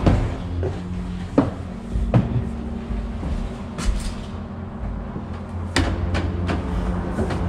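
A series of uneven knocks and clicks, a dozen or so, several close together around the middle and toward the end, over a steady low hum.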